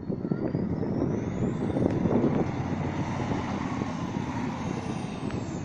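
Heavy trial truck's diesel engine working hard as the truck climbs over a dirt mound, with a high whine that rises in pitch over the first two seconds and falls again near the end.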